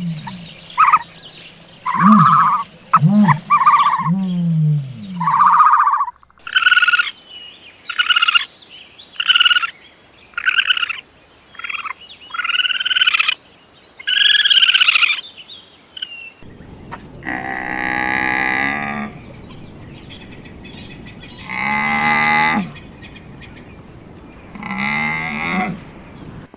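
Farm animal calls in three runs: a few falling-pitch calls, then a quicker series of higher-pitched calls, then three long, low, drawn-out calls.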